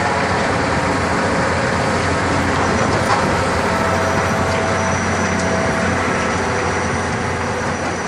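A very large dirt-digging machine's engine running steadily at an even pitch, fading slightly near the end.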